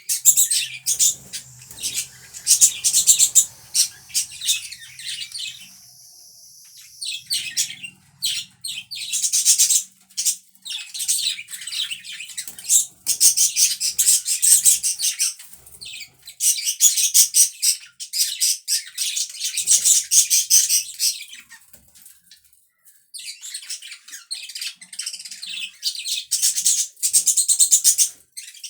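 Pet budgerigars chattering and warbling in long, rapid spells of high-pitched chirps, with short pauses about six seconds in and again around twenty-two seconds.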